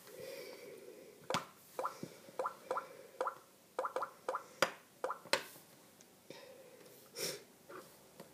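Taps on a phone's keypad while dialling a number: a quick, uneven run of about a dozen light clicks in the middle.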